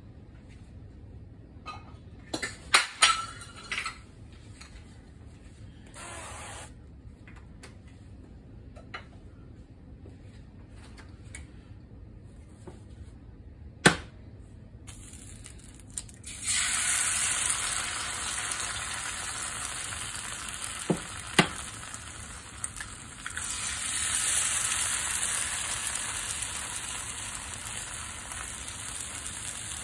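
A few sharp taps, then from about halfway through a loud steady sizzle as eggs fry in hot oil in a nonstick frying pan; the sizzle swells again a few seconds later, with two more taps between.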